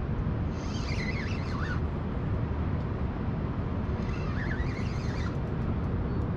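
A steady low outdoor rumble, with two short bursts of bird chirping: one about a second in and one around four to five seconds in.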